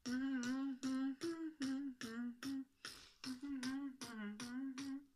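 A man beatboxing a hardstyle-style tune: a hummed melody in short notes that step up and down, broken by sharp mouth-made clicks and snare-like hits.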